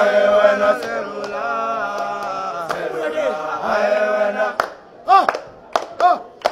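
A group of men singing together as a chant in held, layered notes, with no instruments. About four and a half seconds in, the held singing breaks off into short, sharp upward yelps with claps or clicks.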